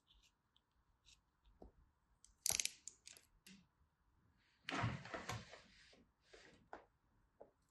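Small clicks and scrapes of a snap-off utility knife handling and slicing kinetic sand, with a sharp click about two and a half seconds in and a longer rasping scrape around five seconds in.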